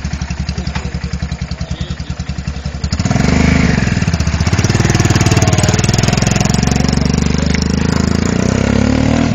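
A 250 cc motorcycle engine idles with an even putter, then revs up sharply about three seconds in and stays at high revs, its pitch climbing again near the end.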